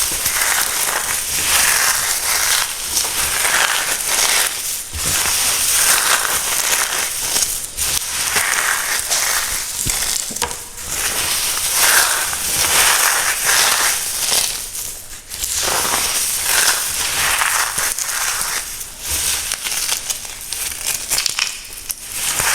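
Crunchy reformed cornstarch being crushed: a dense, continuous crunching and crackling with a few brief pauses.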